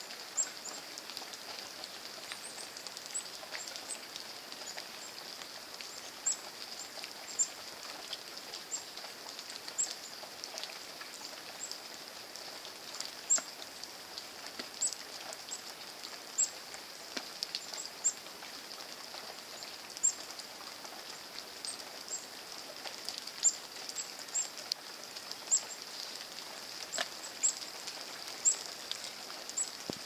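Rain pattering: irregular sharp drip ticks, about one a second, over a steady hiss of falling rain.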